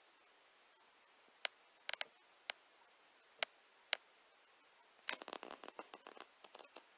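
Faint handling of loose sheets of drawing paper: a few scattered soft clicks, then a short spell of crackly paper rustling starting about five seconds in.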